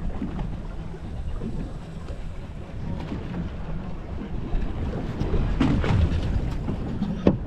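Wind buffeting the microphone over water washing against a boat's hull, a steady low rumble, with a sharp knock just before the end.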